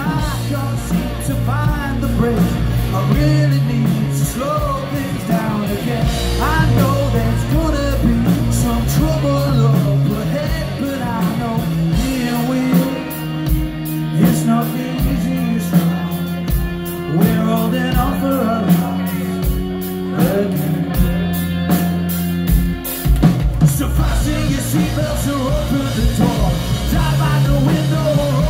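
Rock band playing live: a male lead vocal over electric guitars and drums. For about ten seconds in the middle the bass and kick drum drop back, then the full band comes in again near the end.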